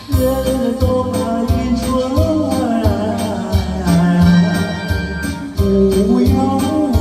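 A festive song with a steady percussion beat under a wavering melody line with vibrato.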